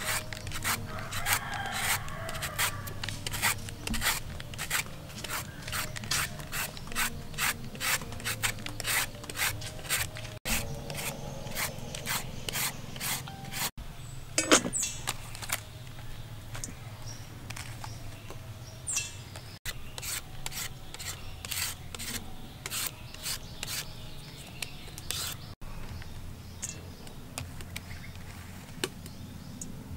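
Julienne peeler rasping down a firm green papaya, shredding it into strips in repeated scraping strokes about two a second.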